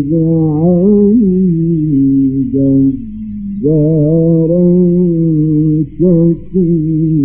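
A male Qur'an reciter chanting in the melodic mujawwad style, long held notes with wavering ornaments and a short breath about three seconds in. It is an old, narrow-sounding recording with a steady low hum underneath.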